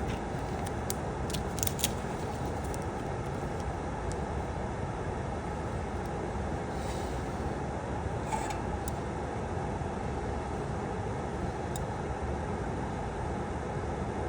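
Steady whooshing noise of a soldering fume hood fan, with a few light clicks of handling in the first couple of seconds.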